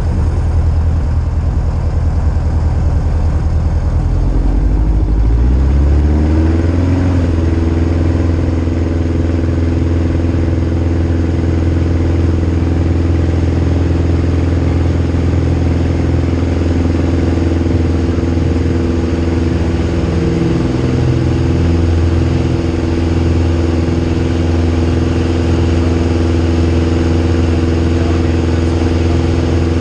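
Van's RV light aircraft's piston engine and propeller heard from inside the cockpit, rising in pitch about four to seven seconds in as the throttle is opened for takeoff, then running steady at takeoff power through the takeoff roll and climb-out.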